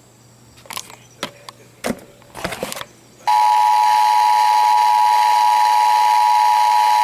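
A few short clicks, then about three seconds in the Emergency Alert System attention signal starts: two steady tones sounding together as one loud, harsh beep that holds unbroken.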